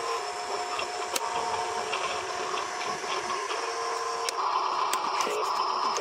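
Small electric lift motor of a Huina RC dump truck whining steadily as it tilts the dump bed up. The whine grows louder and changes about four seconds in, with a few faint clicks.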